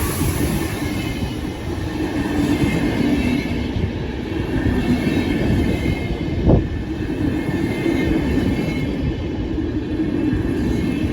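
Train running through the station: a steady rumble of wheels on rails with a faint whine, and a single sharp knock about six and a half seconds in.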